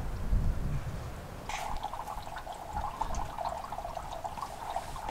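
Wind rumbling on the microphone for the first second or so, then water trickling steadily, with small splashing drips, from about a second and a half in.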